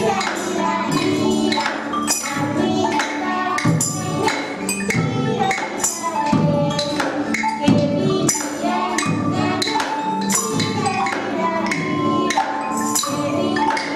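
Children's percussion ensemble playing: wooden xylophones struck with mallets over a large double-headed drum beaten with sticks, with a tambourine jingling.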